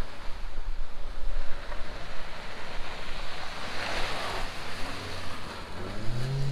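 Kia Sportage on 31-inch tires driving past on a muddy dirt track: a rush of tyre and mud noise that swells as it passes about four seconds in, with wind on the microphone. Near the end the engine revs up as it pulls away.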